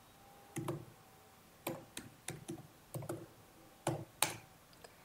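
Computer keyboard being typed on: about nine separate key clicks, unevenly spaced, with short gaps between them.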